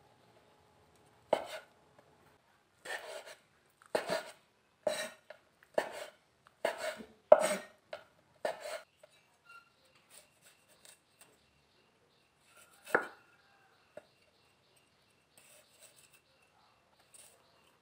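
Cleaver chopping soaked shiitake mushrooms on a wooden cutting board: a run of about nine sharp knife strikes on the board over the first nine seconds, one more about thirteen seconds in, then only faint light taps.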